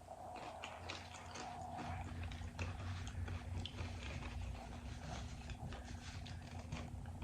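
A person chewing cheesy beef nachos made with Nacho Cheese Doritos close to the microphone, with irregular crunches throughout.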